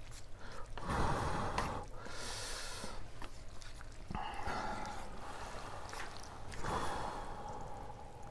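A person's breathy sniffs and gasps, four bursts about a second long.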